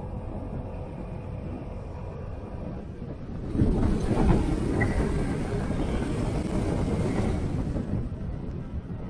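Vespa GTS scooter riding along, its engine and wind noise steady. About three and a half seconds in the sound grows louder and fuller as the scooter runs through a road tunnel, then drops back near the end as it comes out.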